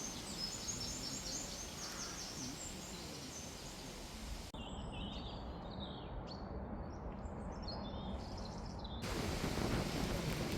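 Small birds chirping over a steady outdoor hiss of breeze. The background changes abruptly twice, and in the last second and a half it turns to a louder, lower rushing.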